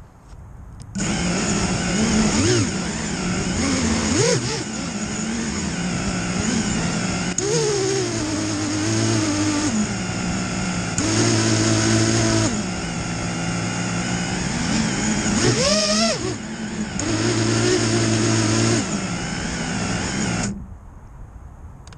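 Racing quadcopter's brushless motors and propellers, heard from the onboard camera. They spin up about a second in and run with a steady whine, with several sharp rising-and-falling pitch sweeps as the throttle is punched. The sound drops away briefly near the end.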